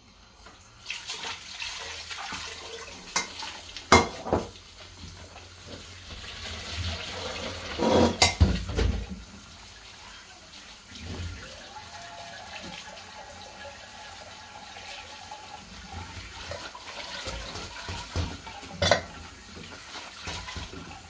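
Tap water running onto wheat grains in a plastic colander in a kitchen sink as they are rubbed and rinsed by hand; the water starts about a second in. A few sharp knocks, the loudest about 4 and 8 seconds in and near the end.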